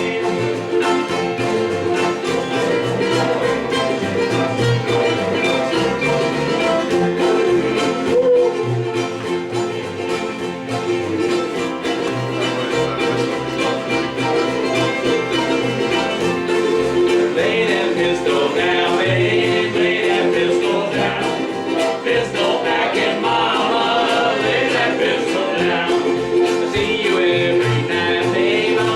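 Live acoustic country string-band music with a steady, rhythmic bass line under sustained chords; from a little past halfway a higher, wavering melody line comes in over it.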